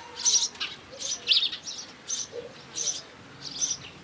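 Small birds chirping: short, high chirps repeated every half second or so, in uneven clusters.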